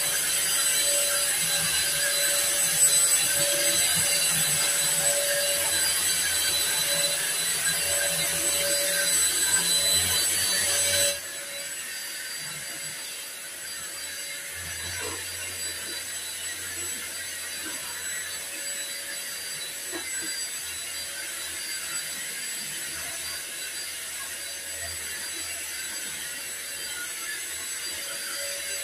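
Cordless stick vacuum cleaner running steadily with a motor whine; about eleven seconds in it drops abruptly to a quieter level and runs on, with a few light knocks.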